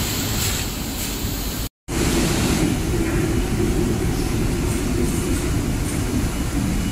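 Steady factory-floor machinery rumble with hiss, typical of a glass-processing plant. It breaks off for an instant about two seconds in, then carries on with a steady low hum.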